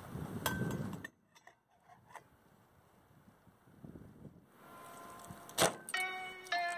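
Dense crackling noise for about the first second, cutting off suddenly, then near quiet. About five and a half seconds in comes a sharp tap, and then plucked-string background music, zither-like, starts near the end.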